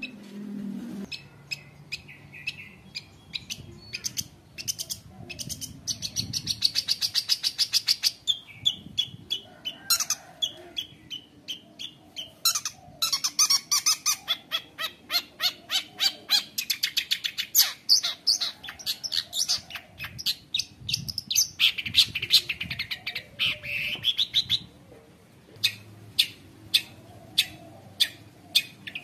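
Long-tailed shrike singing continuously. It gives rapid runs of sharp, high chips, several a second, broken by harsh buzzy chattering phrases, and it pauses briefly twice.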